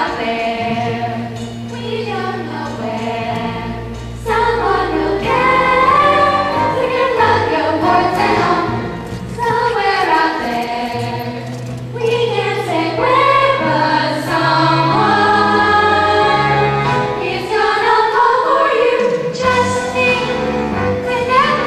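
A group of voices singing together in harmony over a musical accompaniment with long-held low bass notes, from a stage musical number.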